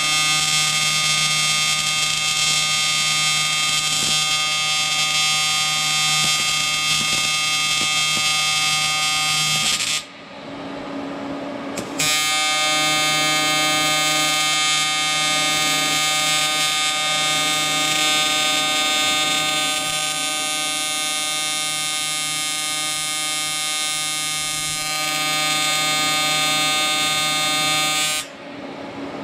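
AC TIG welding arc on cast aluminum, buzzing steadily while weld metal is built up on a motorcycle engine case. The arc stops about ten seconds in, strikes again two seconds later, and cuts off near the end.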